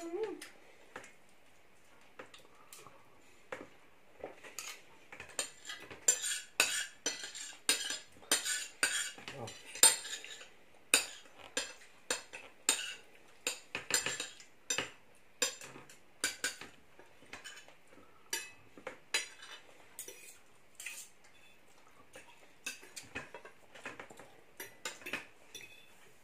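Metal knives and forks clinking and scraping on ceramic dinner plates as food is cut and eaten. A few scattered clinks at first, a dense run of clinking and scraping in the middle, thinning out again toward the end.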